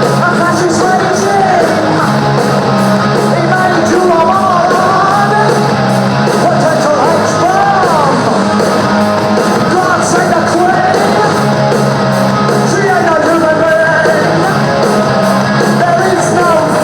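Rock music with a lead singer, electric guitars and a steady cymbal beat, played loud.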